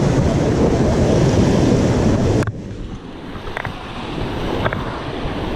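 Sea surf washing over rocks, with wind buffeting the microphone. The loud rush drops off suddenly about two and a half seconds in, leaving a quieter wash of waves and a couple of faint clicks.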